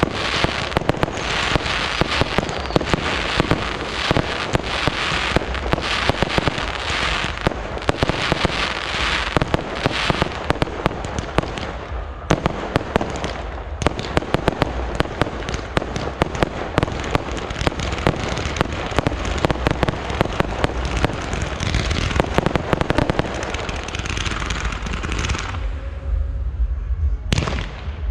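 Fireworks display: a dense, continuous barrage of crackling and sharp bangs, easing off briefly near the end before more bangs.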